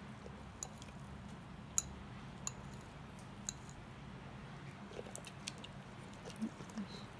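A Great Pyrenees chewing and smacking its mouth on a bite of cake: scattered sharp wet clicks at irregular gaps, the loudest about two seconds in, over a faint steady low hum.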